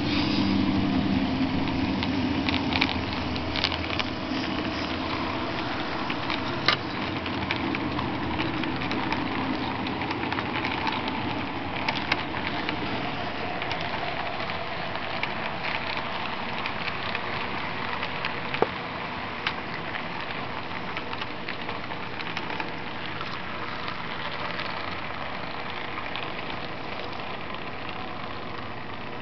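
HO scale model freight train rolling past on its track: a steady rattling hiss from the wheels with scattered sharp clicks at the rail joints, slowly fading as the train draws away.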